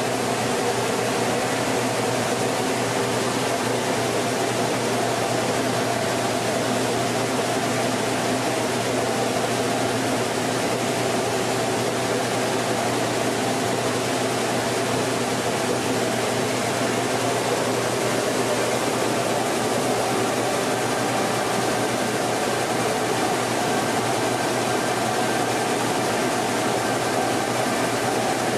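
Mini rice mill running steadily: a continuous mechanical hum and whir with a few steady tones.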